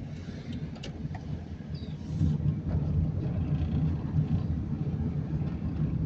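Car engine and tyre noise heard from inside the moving car while it drives slowly; the low engine hum grows louder about two seconds in.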